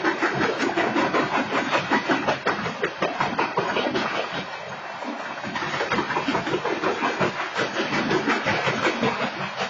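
Freight train's coal hopper cars rolling past, their steel wheels rumbling on the rails with a dense, uneven clatter of knocks.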